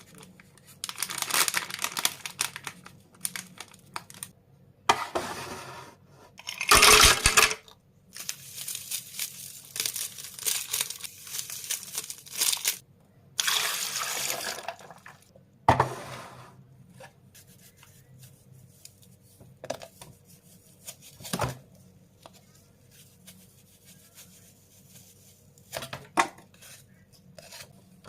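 Iced coffee being made by hand: liquid pouring in several bursts and clinks of ice and glass, with a few sharp knocks in the second half.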